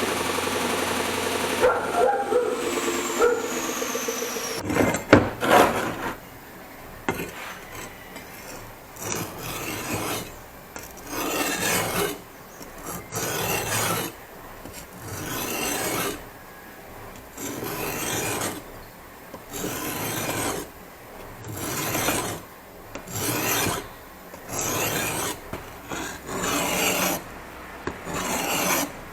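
A power tool's motor winding down with a falling whine, a couple of knocks, then a hand file or rasp working in slow, even strokes, a dozen or so, each about a second long.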